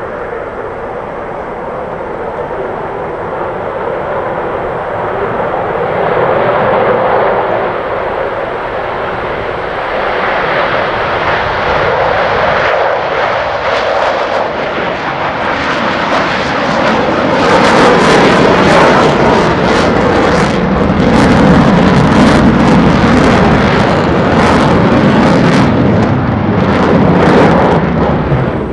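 Military jet flying a demonstration pass: a jet-engine roar that builds steadily louder, turning into a crackling roar from about halfway in as the jet comes close.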